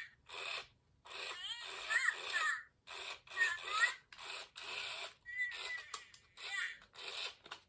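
Furby Baby toy talking in short, high-pitched electronic babbling phrases with brief gaps between them, thin and lacking bass, through its small speaker. The speaker has been weakened by being dropped, so the voice is pretty quiet.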